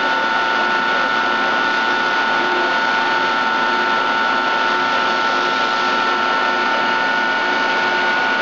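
5-inch Giddings & Lewis CNC horizontal boring mill running smoothly: a steady even hiss with two steady high-pitched whining tones.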